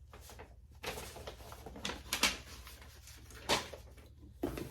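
Rustling and light knocks of cosmetics packaging being handled, with a few sharper taps, the strongest about two seconds and three and a half seconds in.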